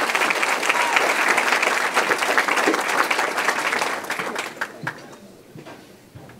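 Audience applauding, the clapping dying away about four seconds in to a few last scattered claps.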